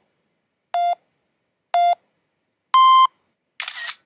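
Phone camera self-timer counting down: short electronic beeps a second apart, then a higher, longer final beep, followed by a short camera shutter sound near the end.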